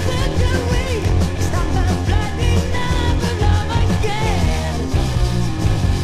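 Early-1970s heavy rock recording: electric guitar with bent notes over bass and a steady drum beat.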